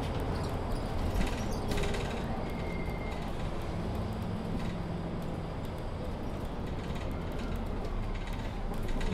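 Interior of a Mercedes-Benz Citaro C2 Ü Hybrid bus standing still, its diesel engine idling with a steady low hum, along with a few light clicks.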